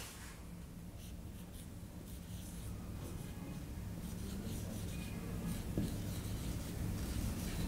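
Marker pen writing on a whiteboard: faint short strokes over a steady low room hum.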